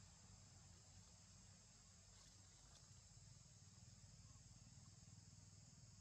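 Near silence, with a faint, steady, high-pitched insect drone and a low background rumble.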